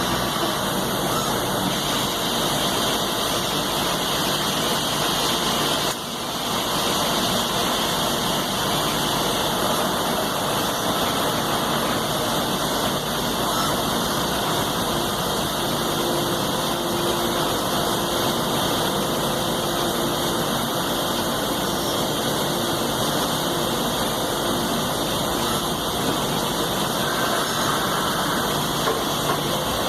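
Citizen C32 VIII CNC sliding-headstock automatic lathe running with a steady mechanical noise, which dips briefly about six seconds in.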